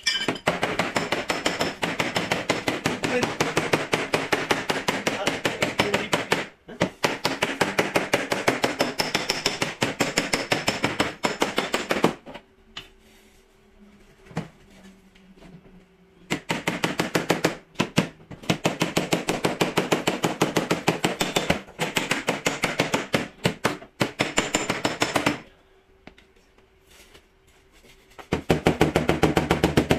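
Rapid light hammer taps on the dented steel quarter panel of a Ford Taurus, about ten a second, in long runs broken by two pauses: bodywork knocking the damaged panel back into shape.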